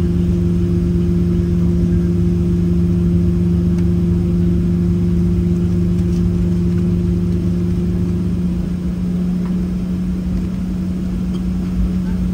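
Steady cabin hum of a Boeing 737-700 on the ground before takeoff, with its CFM56-7B jet engines at idle and the cabin air running. Two steady low tones sit over a rumble, and the higher of the two drops out about eight seconds in.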